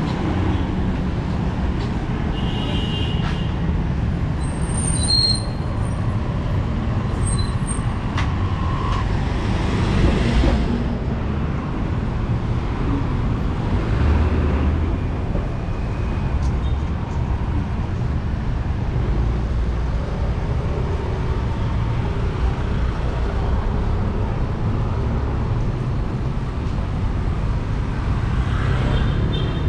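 City street traffic: vehicles passing over a steady low rumble, with swells as they go by, a brief high squeak a few seconds in, and a motor scooter passing close near the end.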